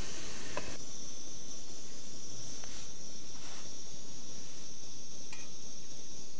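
Small canister gas stove burning with a steady hiss under a pot of water, with a few faint clicks.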